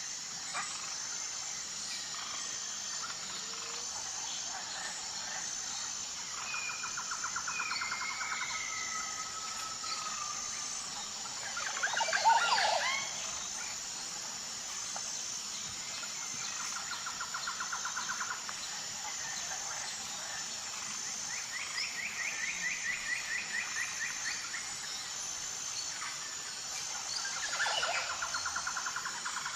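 Rainforest ambience: a steady high buzz of insects, pulsing evenly, under birds calling with short whistles and repeated rapid trills. One louder call stands out about twelve seconds in.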